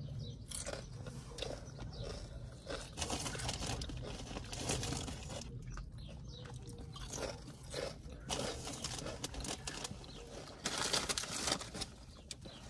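Close-up crunching and chewing of kettle-cooked potato chips, with a sub sandwich being bitten and chewed. The crisp crunches come irregularly, a few louder than the rest.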